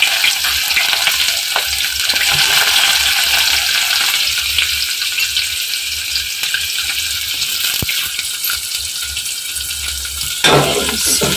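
Freshly added chopped onions frying in hot oil in a metal pot, a steady hiss of sizzling. A few clinks and a louder clatter come near the end.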